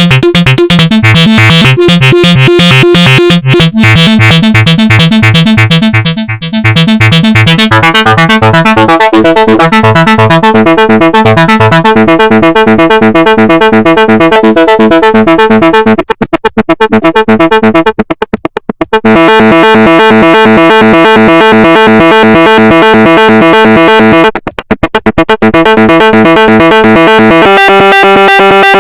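Make Noise 0-Coast synthesizer playing a loud, fast arpeggiated pattern of rapidly repeating notes. It cuts out briefly a few times in the middle and shifts to a different pitch near the end.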